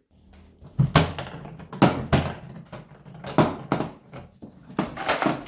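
Tools being handled in a hard plastic toolbox: a string of uneven knocks and clatters of tools and case against the plastic.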